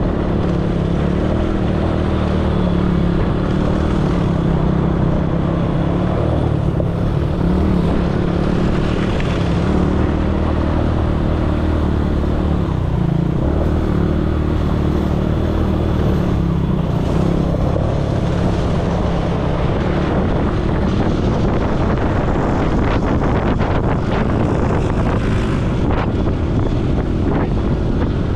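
ATV engine running at a fairly steady pitch while riding, with wind noise on the microphone.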